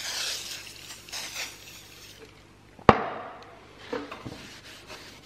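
WD-40 aerosol can spraying onto a sandblasted steel handsaw blade, a hissing spray that lasts about two seconds. About three seconds in comes one sharp knock, the can being set down on the bench, followed by softer scuffing of a rag wiping the oil over the blade.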